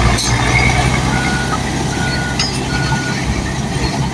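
Bulldozer's diesel engine running steadily while its reverse alarm beeps three times. There is a short knock just after the start.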